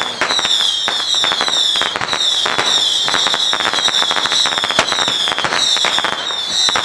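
Loud strings of firecrackers crackling in dense, irregular rapid cracks, with a high falling whine repeating over and over above them.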